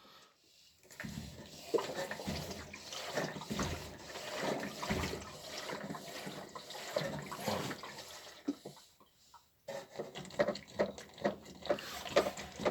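Water sloshing and gurgling inside a washing machine hose as it is moved about, then a run of short knocks and clicks from the hose and machine parts being handled near the end.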